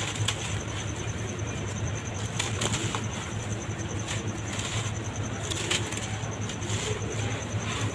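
Red dirt crumbling and breaking up in water, with a few sharp crackles over a steady low hum.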